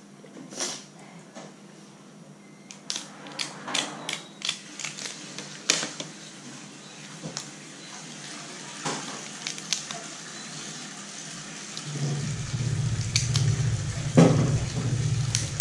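Cooked crab shell being snipped with kitchen scissors and cracked apart by hand: a run of sharp cracks and snips, thick at first and sparser later, with one loud crack near the end. About twelve seconds in, a low steady engine hum starts and keeps on.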